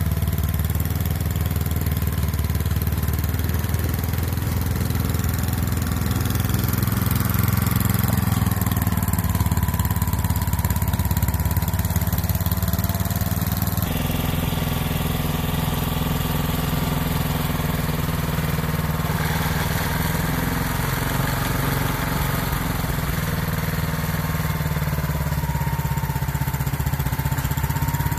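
Gasoline snowblower engine running steadily under load while it throws snow. The engine note changes abruptly about halfway through.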